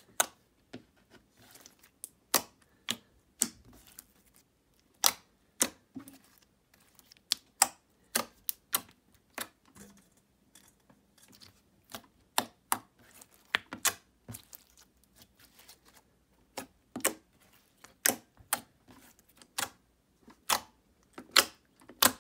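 Cra-Z-Art Nickelodeon slime being squeezed and folded in the hands, giving sharp, irregular clicks and small pops, about one or two a second.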